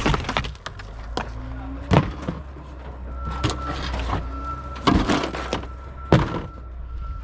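Scrap being handled and dropped: several heavy thuds and clanks, the loudest about 2, 5 and 6 seconds in, over a steady low engine hum.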